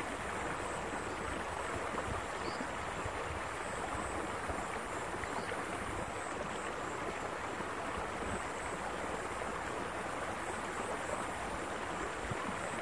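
Water flowing steadily in a concrete irrigation canal, an even rushing noise, with a faint high-pitched steady buzz above it.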